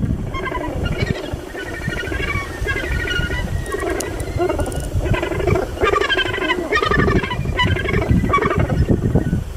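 Recorded gannet colony calls played from a horn loudspeaker at a decoy site: many overlapping, wavering calls repeating without a break, over a low rumble.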